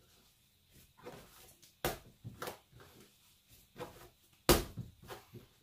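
Sourdough dough being stretched, folded and slapped down onto a wooden chopping board during hand kneading: two loud thuds about two and a half seconds apart, with softer pats and handling sounds between.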